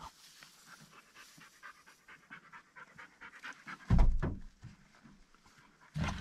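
A dog panting quickly and steadily, close to the microphone. There is a loud thump about four seconds in and another just before the end.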